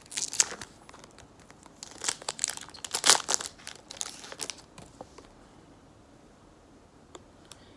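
Foil wrapper of a Topps Chrome trading card pack crinkling as it is handled and opened, in two spells of crackling: a short one at the start and a longer one about two seconds in. A few light clicks follow near the end.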